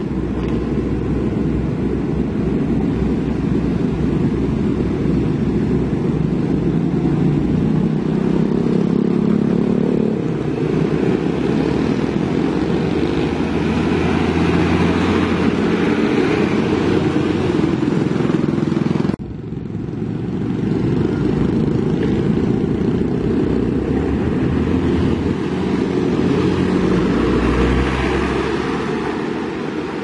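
Truck and road-traffic engines running steadily, swelling as a vehicle passes close by partway through. The sound breaks off abruptly about nineteen seconds in and picks up again.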